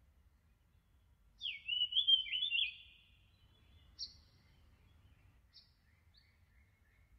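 Bird calls: a quick run of whistled chirps sliding down and up about a second and a half in, a single sharp chirp a little later, then a few faint short calls.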